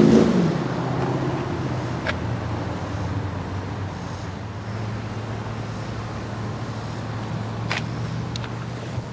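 2013 Audi S7's twin-turbo V8 idling steadily, a low even hum. Two sharp clicks, about two seconds in and again near the end.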